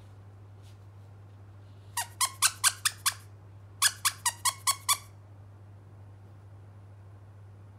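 A squeaky plush toy squeezed by hand in two quick runs of about six squeaks each, every squeak falling in pitch, the first run about two seconds in and the second about a second later.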